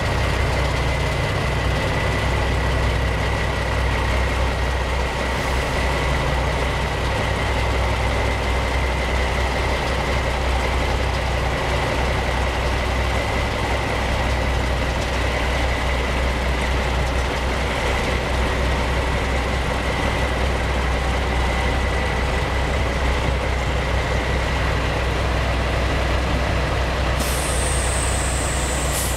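1976 Lima 990TC truck crane's engine idling steadily, a low rumble with a thin high whine over it. A high hiss comes in near the end.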